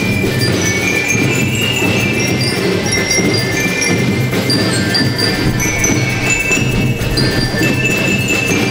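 School rhythmic marching band of bell lyres and drums playing. The bell lyres ring out a melody of short high metallic notes over steady drumming.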